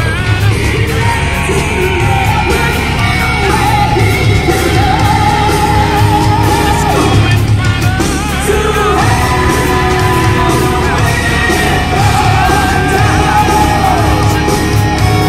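Loud rock-style music with a singer holding long, wavering notes over a steady beat.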